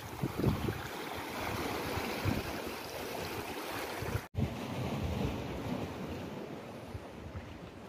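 Sea water washing and lapping around rocks at the shoreline, with wind gusting on the microphone. The sound drops out for an instant just past halfway.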